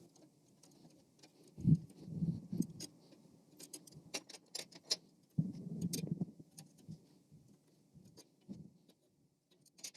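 Handling noise of small metal pieces and tools: scattered light metallic clicks and clinks, with a few dull knocks, one about a second and a half in and a cluster about halfway through.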